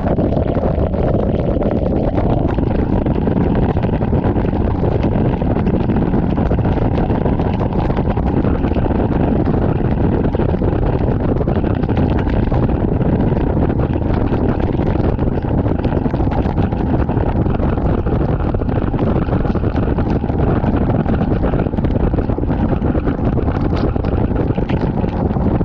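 Steady wind noise on the microphone from a bass boat running at high speed, with the outboard motor and rushing water underneath, unbroken throughout.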